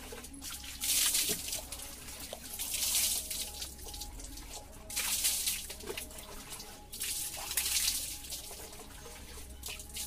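Water poured from a plastic mug over a person's body during a bucket bath, splashing down onto the ground in about four short pours a couple of seconds apart.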